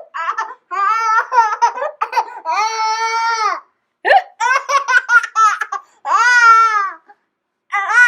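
A young child laughing hard at hiccups: runs of quick, high laughs broken by two long, high squeals, one about two and a half seconds in and one near the end, with short sharp catches between them.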